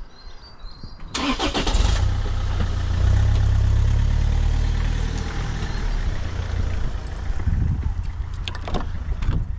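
A car engine starting about a second in, a brief starter burst catching into a low rumble, then running steadily, easing off slightly toward the end.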